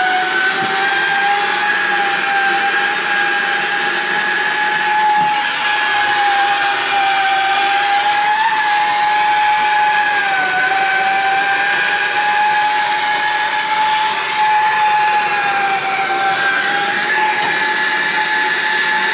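Plumber's gas torch burning steadily with a hiss and a whistling tone that wavers a little in pitch, reheating soldered copper shower-valve fittings so the joints soften and the fittings can be shifted.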